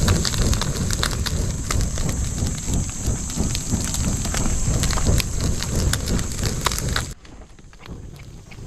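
Open wood fire crackling, a dense run of small pops and hissing, with fish grilling over it. The sound drops away suddenly about seven seconds in.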